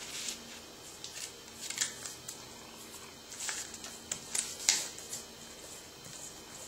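A sheet of paper being folded and creased by hand: a few short, crisp rustles, the clearest about three and a half and four and a half seconds in.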